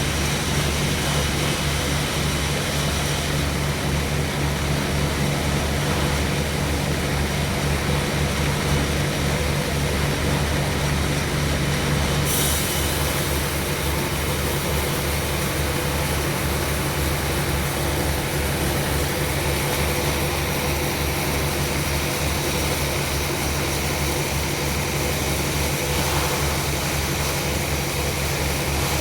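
Sawmill machinery running steadily: a low engine hum under a dense, rushing saw noise. About twelve seconds in, the higher hiss grows brighter and stays so.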